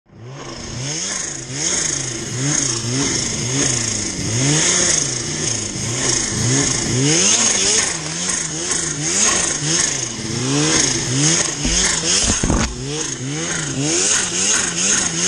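Supercharged Arctic Cat 800 C-TEC2 two-stroke snowmobile engine revving up and down again and again as the rider works the throttle through deep powder, over a steady high whine.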